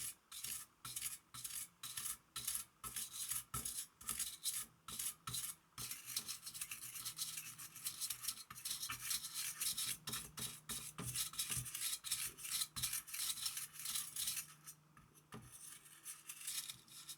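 Anti-static brush scrubbing dust out of the grooves of a graphics card's heatsink, a dry bristly scratching. The strokes come about twice a second at first, then quicker and denser, with a short pause near the end.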